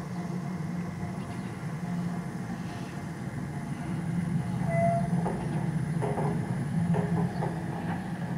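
Piko garden-railway model of a BR 80 steam tank locomotive running along the track: the steady hum of its electric motor and gearing, with a run of repeated clicks in the second half as it rolls away over the rails.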